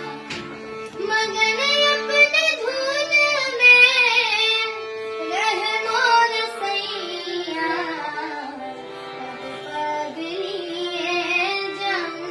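Young girl singing an Indian classical-style melody with sliding, ornamented phrases, over steady held notes from an accompanying instrument.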